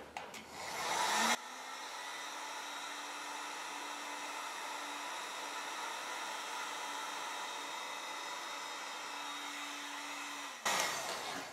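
Handheld hot-air blower switched on about a second in, running steadily with a faint hum and winding down near the end, heating heat-shrink tubing to fix a rod guide in place.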